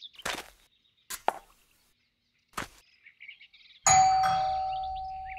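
A few footsteps, then about four seconds in a doorbell sounds once: a single ding that rings on and slowly fades. Birds chirp faintly in the background.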